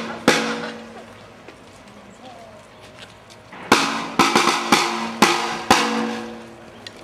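Small red snare drum beaten with sticks in a marching beat: a stroke just after the start, a pause of about three seconds, then a run of about seven strokes over two seconds, each ringing on briefly.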